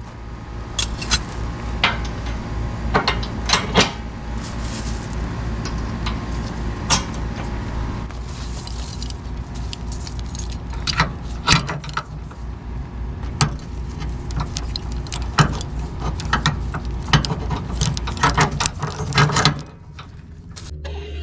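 A vehicle engine running with a steady low pulse, under repeated irregular clinks and rattles like keys or loose metal. The clinking stops near the end.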